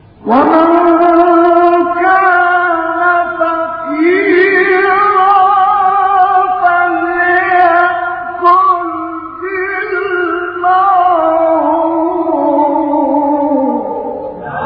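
A male Quran reciter chanting in the melodic mujawwad style: one long unbroken phrase in a high voice, ornamented with quick wavering turns, climbing a few seconds in and sinking and fading away near the end.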